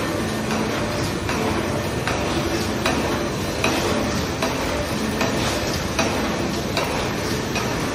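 Non-woven bed sheet folding and cutting machine running: a steady mechanical rattle over a faint hum, with irregular sharp ticks and clicks.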